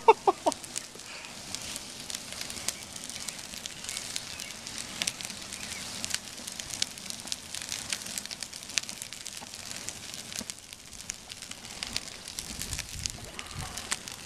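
Paper poster soaked in Everclear burning on a gas grill: the flames crackle steadily, with many small sharp snaps scattered throughout.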